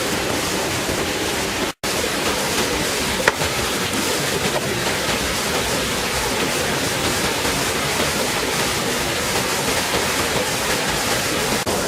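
Steady rush of water falling into a pond from a small waterfall, with a brief cut-out just under two seconds in and one sharp click a little later.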